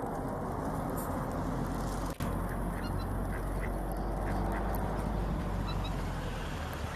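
Ducks quacking over a steady low rumbling noise, with a brief drop in sound about two seconds in.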